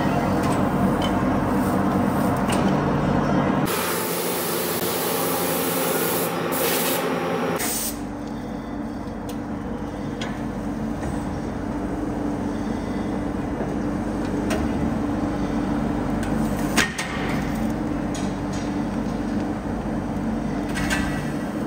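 A die-casting machine running with a steady hum. A loud hiss starts about four seconds in and lasts close to four seconds, and there is a single sharp clack later on.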